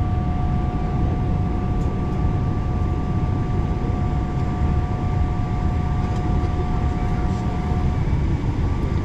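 Cabin noise inside a Boeing 777-300ER during pushback: a steady low rumble with two steady whining tones over it, the lower whine stopping about eight seconds in.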